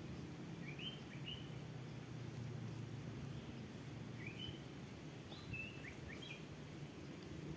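Short rising chirps of a small bird: two about a second in, then a few more between about four and six and a half seconds in, over a steady low outdoor rumble.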